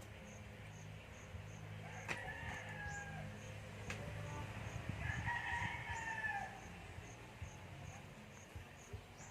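Rooster crowing: a shorter call about two seconds in and a longer, louder crow about five seconds in, falling away at the end. Two sharp knocks fall between them, over a steady low hum.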